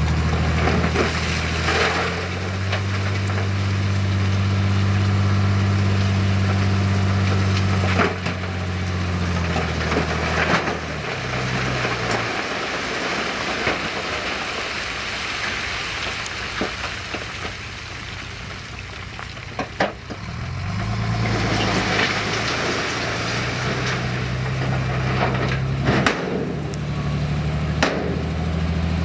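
Heavy earthmoving machine's diesel engine revving up under load and dropping back, twice, over crunching and scraping of rock. Several sharp knocks are heard.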